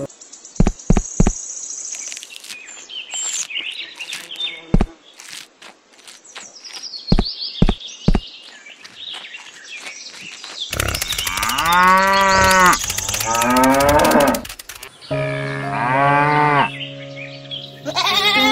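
Birds chirping with a few sharp clicks, then a cow mooing loudly in one long, wavering call about two-thirds of the way in. Background music comes back after the moo, with a shorter animal call near the end.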